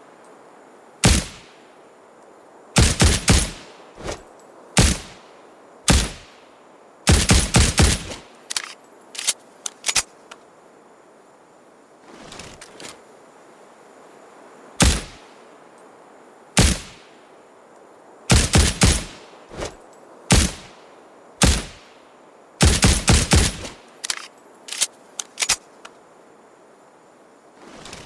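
Ruger Security-9 9mm pistol fired through a suppressor: single shots and quick strings of several shots, each a sharp crack, with fainter clicks between some of them.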